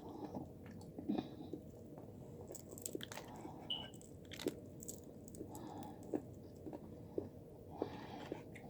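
A person chewing and biting fried chicken, with scattered light crunches and mouth clicks.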